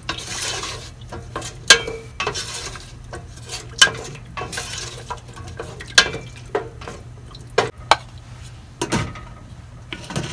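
A wooden spatula stirring coconut milk in a stainless-steel pot, scraping and knocking against the metal at irregular moments, over a steady low hum.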